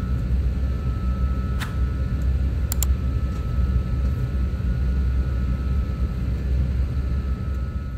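Steady low rumble and hum of an airliner cabin at the end of a flight, with a faint steady high tone. Two short sharp clicks sound about two and three seconds in.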